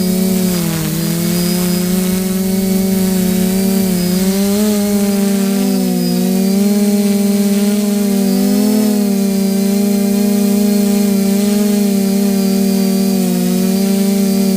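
A steady motor drone with a strong buzzing tone. Its pitch dips about a second in, then wavers slowly up and down.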